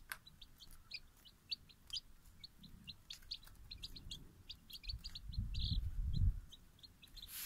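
Young chicks peeping: a steady run of short, high peeps, several a second. A low muffled rumble comes up about five seconds in and is the loudest part.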